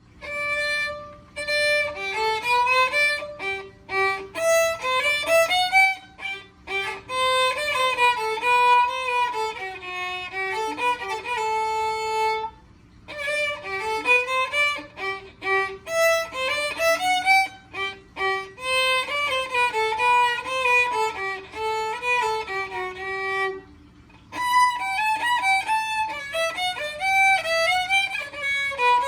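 Solo violin playing a melody in phrases, starting abruptly after silence, with short breaks about 13 and 24 seconds in.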